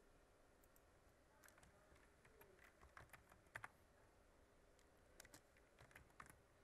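Faint computer keyboard typing: a short, uneven run of keystrokes about a second and a half in, then a few more near the end.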